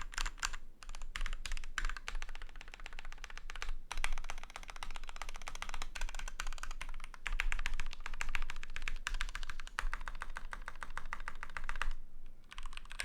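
Typing on a GK61 mechanical keyboard with lubed Gateron Black linear switches, a steel plate and PBT doubleshot keycaps: a dense run of keystroke clacks, with a short pause about four seconds in and another near the end.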